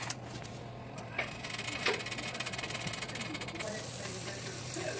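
Steady low hum and faint hiss from an open oven with a pan of lasagna bubbling inside, with a few soft ticks. The hiss gets a little louder about three and a half seconds in.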